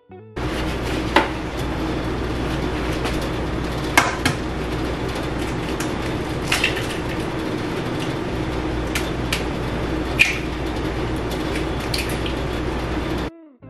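Kitchen cooking sounds: a steady hiss and hum, with about six sharp clinks of a utensil against cookware scattered through it.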